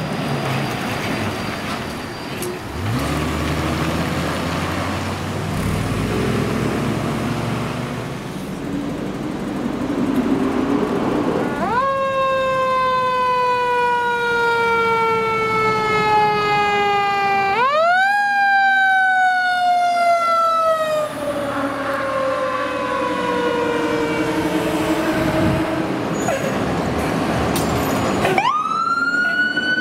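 Fire trucks' diesel engines and tyre noise as they drive past, with an engine revving up about three seconds in. About twelve seconds in, a mechanical siren winds up quickly and then coasts slowly down in pitch. It winds up again about six seconds later and coasts down, and a third wind-up comes near the end.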